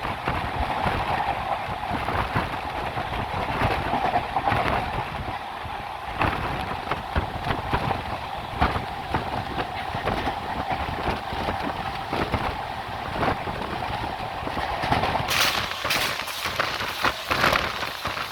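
Poorva Express running at speed, its wheels clattering steadily over the rail joints. About three seconds before the end, a harsher hiss with crackles joins in.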